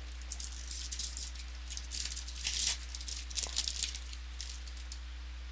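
Football trading cards and their foil pack wrapper being handled, a run of quick crinkles and clicks lasting about four seconds, loudest about halfway through, over a steady low hum.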